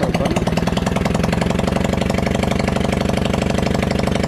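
Small ATV engine idling steadily just after starting, with quick, even firing pulses.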